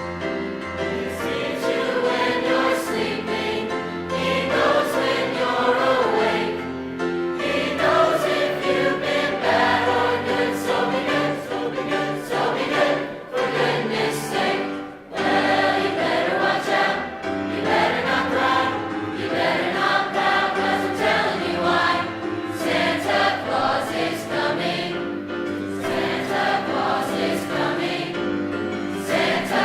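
A high school choir singing a Christmas song, many voices holding sustained notes together.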